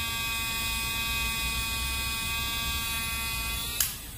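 Cordless handheld milk frother running with its wire whisk spinning freely in the air: a steady, high motor whine. Near the end it cuts off with a click and the whine drops away.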